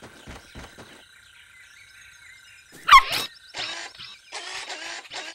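Cartoon sound effects for a puppy: quick pattering footsteps at the start, then a single high, short dog bark about three seconds in, the loudest sound. Several short noisy bursts follow.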